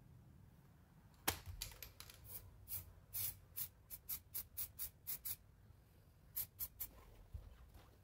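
Short, sharp scratchy strokes of hand work on a small object, two or three a second, starting about a second in, pausing briefly after the middle, then a few more.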